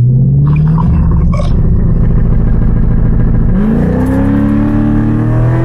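C5 Corvette's LS1 5.7-litre V8 running, pulling up in revs at the start and holding steady, then climbing smoothly again about three and a half seconds in and easing off at the end. The engine is accelerating with its brake torque management tuned out, so it no longer bogs.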